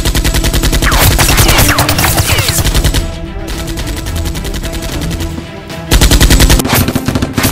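Rapid automatic gunfire, as a dubbed sound effect: a burst for the first three seconds, then another about six seconds in, over background music.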